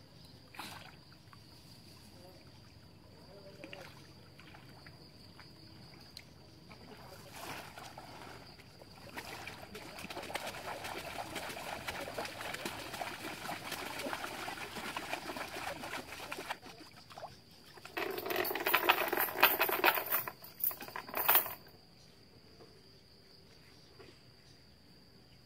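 Shallow water splashing, sloshing and trickling as a man wades and moves a wooden boat through it, with the loudest splashing in a short burst about three-quarters of the way through. A steady high insect drone runs underneath.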